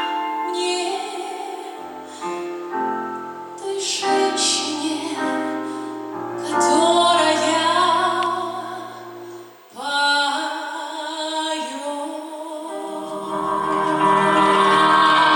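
A woman singing a wordless vocal line over instrumental accompaniment, with long held notes; the music thins briefly near the middle and swells fuller toward the end.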